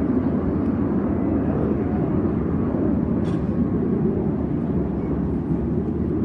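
Steady low rumble of aircraft engines in flight, with no clear rise or fall.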